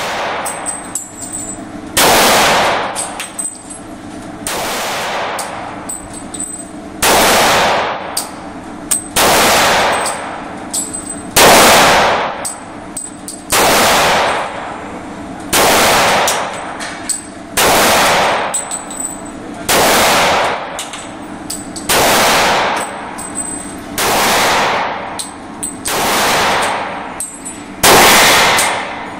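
Handgun shots fired one at a time at a slow, steady pace, about one every two seconds, each a loud sharp crack with a short echoing tail.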